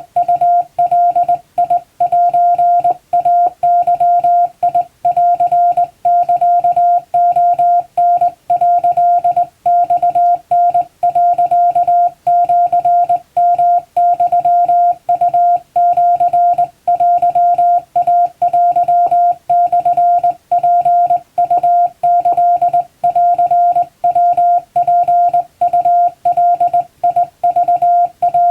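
Japanese wabun Morse code sent by hand on a straight key, heard as a single steady CW tone keyed on and off in quick dots and dashes, with brief gaps between characters.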